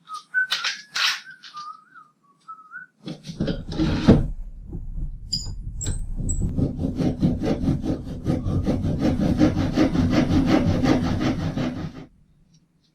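A wavering whistled tune with a few knocks for the first three seconds. Then a tool cuts or sands 3/4-inch plywood: about nine seconds of loud, rapid, rhythmic rasping that stops suddenly near the end.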